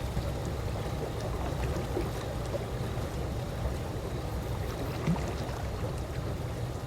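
Calm pool water lapping gently: a steady low wash with faint scattered drips, and one brief louder splash about five seconds in.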